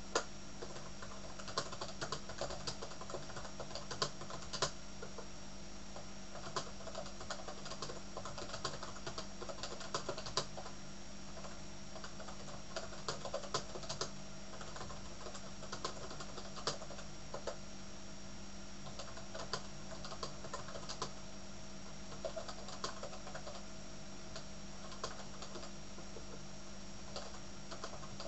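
Typing on a computer keyboard: quick, irregular key clicks in runs, over a steady background hum.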